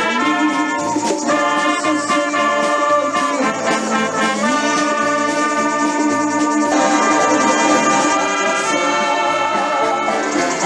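Municipal wind band playing, with brass (trombones and trumpets) to the fore, in held chords that change every second or two.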